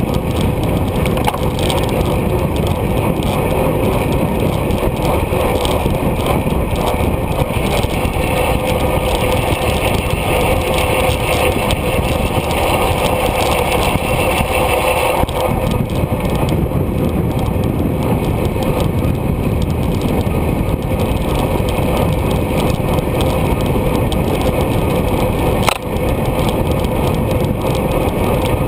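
Wind rushing over a bike-mounted GoPro's microphone at racing speed, with tyre and road noise from the road bicycle, loud and steady. A short knock near the end.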